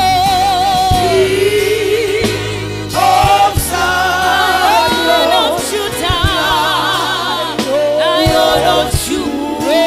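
Gospel music: several voices singing long, held notes with vibrato over a steady low instrumental backing.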